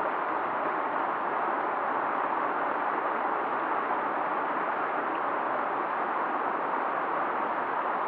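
A swollen river rushing past in a steady, even wash of flowing water, with no separate splashes or gurgles standing out.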